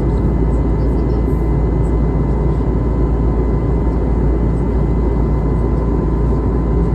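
Airbus A320neo passenger-cabin noise: a steady, loud, deep rumble of engines and airflow, with a faint constant whine on top.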